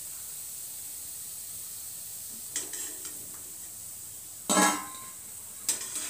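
Hot oil sizzling steadily as gulab jamun deep-fry in a kadhai, with a perforated metal skimmer scraping and clinking against the pan as the fried balls are lifted out. The loudest sound is a single ringing metal clank about four and a half seconds in, with lighter clicks a little before and after it.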